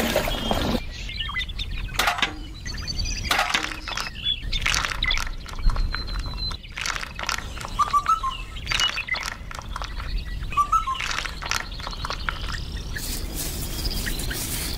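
Wet cement mix poured in small amounts and splattering into a mold, with many short clicks and knocks of handling and a few short chirps in the background.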